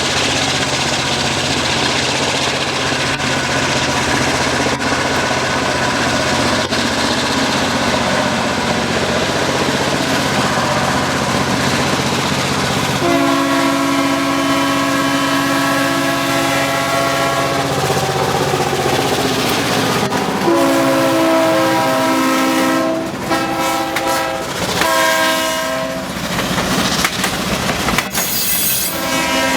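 EJ&E diesel locomotive #656 working along the track, its engine running steadily. About halfway through it sounds a chord horn: a long blast whose notes slide down at its end, a second long blast, then several short blasts, with another starting near the end.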